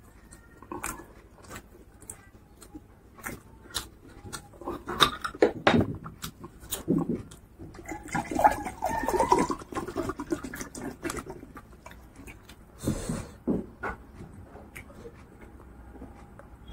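Close-miked eating sounds: chewing, wet mouth clicks and lip smacks of a person eating rice and pork curry by hand, with a denser run of wet chewing in the middle and a sharp gulp-like burst later, then drinking water from a glass near the end.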